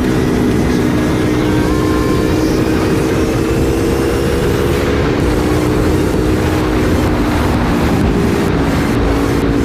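Honda CBR300R single-cylinder engine running at a steady cruising speed while the motorcycle is ridden, with wind rushing over the GoPro's microphone.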